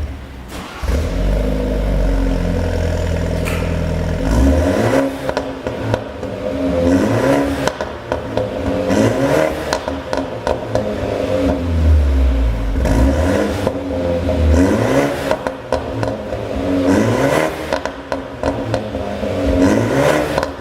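BMW 420i's 2.0-litre turbo four-cylinder being revved again and again, each rev followed by a drop, with sharp pops and crackles from the exhaust. The pops come from a pop-and-crackle engine tune.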